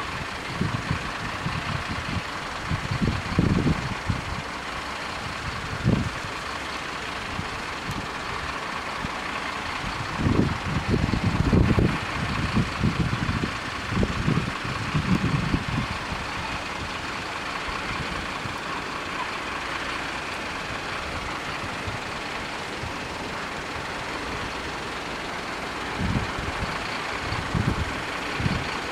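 Railway level crossing warning signal ringing steadily while the red lights flash, with low rumbles coming and going beneath it.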